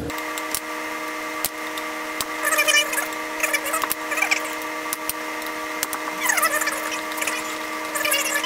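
Power drill or driver motor running steadily with a constant whine that starts abruptly, with scattered clicks and short squeaks over it.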